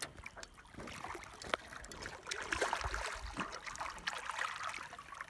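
Water splashing and trickling as a hooked tiger shovelnose catfish is brought up at the surface beside the boat, with irregular small splashes and ticks.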